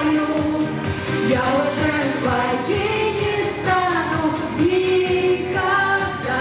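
A song with a singing voice holding long, gliding notes over a steady beat.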